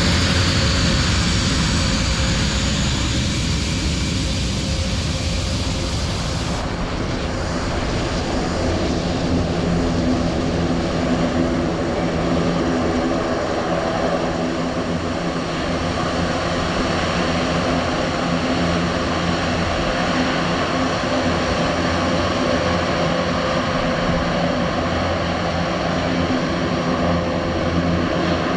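Airbus A400M's four TP400 turboprop engines running on the ground, their eight-bladed propellers turning, making a steady, loud drone of layered engine tones.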